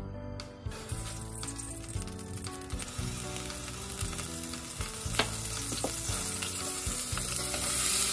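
Cooking oil sizzling in a hot stainless steel pot on a gas hob, getting louder near the end as finely chopped onion is tipped in to fry.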